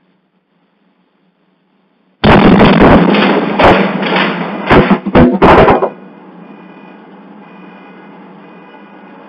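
Blast wave of a petrochemical plant explosion reaching a porch security camera: a sudden boom about two seconds in that overloads the microphone, followed by several sharp bangs over the next three seconds. After that, a much quieter steady noise.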